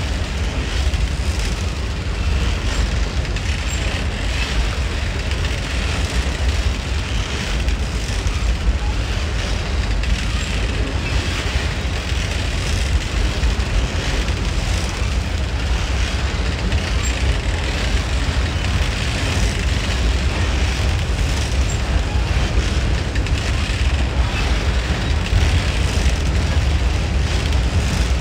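A train rolling steadily past: a loud, unbroken low rumble with a hiss of wheel and rail noise above it.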